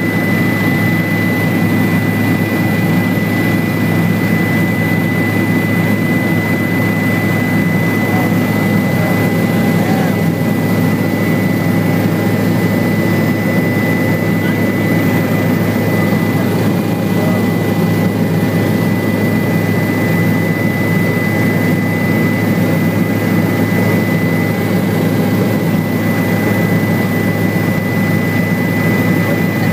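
Helicopter in level cruise heard from inside the cabin: a steady, loud drone from the rotor and turbine engine, with a constant high-pitched turbine whine on top.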